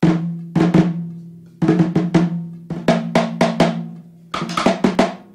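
Intro music of drum strikes in short clusters, each hit ringing out and fading, over a low held note.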